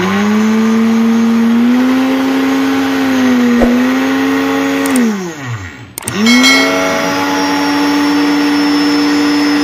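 Silvercrest SC-1589 commercial blender running with an empty jug, its motor giving a steady whine. About five seconds in it is switched off and spins down with falling pitch, then is switched back on about a second later.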